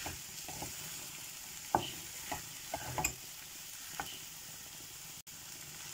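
Wooden spatula stirring a frying potato and chicken filling in a metal karahi: a steady sizzle with irregular knocks and scrapes of the spatula against the pan.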